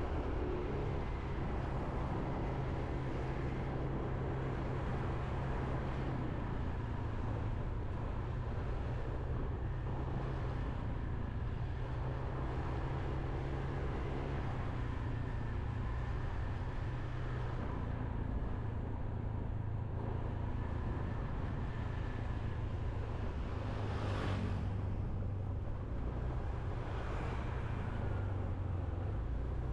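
Motorbike engine running steadily while riding, with road and wind noise. Two brief whooshes come near the end.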